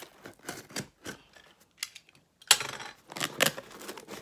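A taped cardboard shipping box being opened by hand: small clicks and scrapes at first, then, about two and a half seconds in, louder ripping and rustling as the packing tape and flaps are pulled free.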